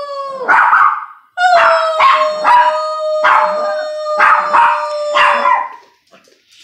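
A small dog howling and barking: a long howl note held steady for about four seconds, with short yipping bark-howls breaking in over it five or six times.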